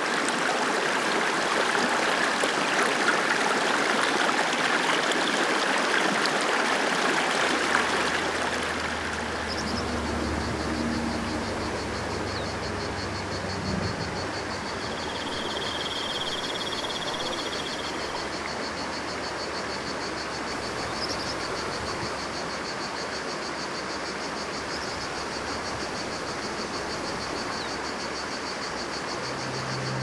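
Shallow stream running over stones, louder in the first few seconds. From about ten seconds in, a high, steady insect trill sounds over the water.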